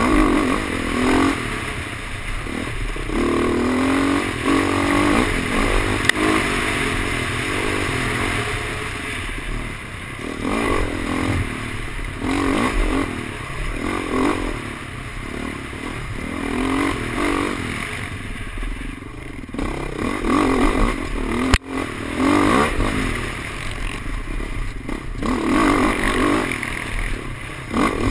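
Dirt bike engine revving up and down over and over as the rider works the throttle along the trail, heard from the rider's helmet. A single sharp knock about three-quarters through.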